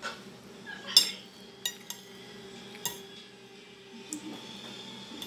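Metal cutlery clinking and scraping against a ceramic plate while eating rice: about five sharp separate clinks, the loudest about a second in.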